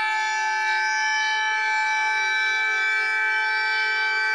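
Emergency alert alarm played back: a loud, steady chord of several tones held without any change in pitch.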